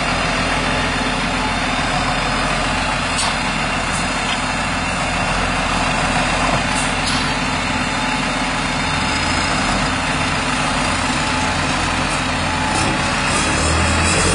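Massey Ferguson 7618 tractor's six-cylinder diesel engine running steadily close by, with a second tractor's engine behind it, getting a little louder near the end.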